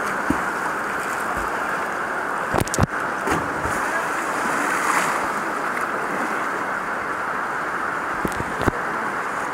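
Fast mountain river rushing over rocks, heard close at water level as a steady roar of whitewater. A few sharp knocks come about three seconds in and again near the end, and spray splashes up about four to five seconds in.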